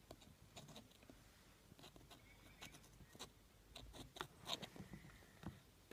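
Faint, scattered light clicks and scrapes: a plastic voltage tester pen's metal probe tip being pressed and moved in a power-strip socket, with a cluster of sharper clicks about four seconds in.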